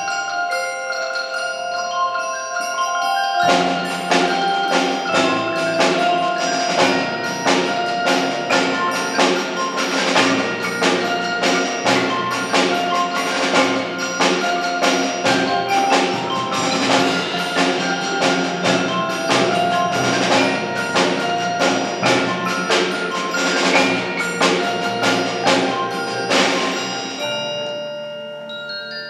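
School percussion ensemble playing a mallet-percussion piece on marimbas, xylophones, glockenspiel and chimes. It opens on held ringing notes, and about three and a half seconds in breaks into a busy passage of quick, rhythmic strikes that thins back to ringing tones and fades near the end.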